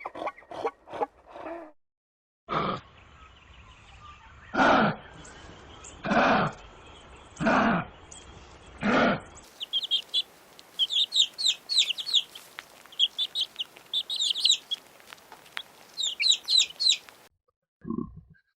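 A run of animal calls in separate parts. It starts with a few quick grunts, then five loud calls come about a second and a half apart. After that a bird sings in rapid high chirping phrases, and short grunts return near the end.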